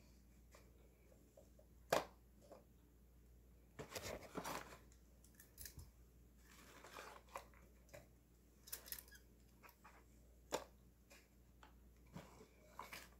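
Metal kitchen tongs clicking as they grip and let go of small cardboard tubes, with bursts of paper and cardboard rustling as the tubes are handled and tipped into a paper bag. Three sharp clicks stand out, one at the very start, one about two seconds in and one about ten seconds in.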